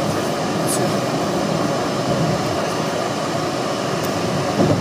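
Steady road noise inside a car cruising on a highway: a continuous rushing hum of tyres, engine and wind heard from the cabin.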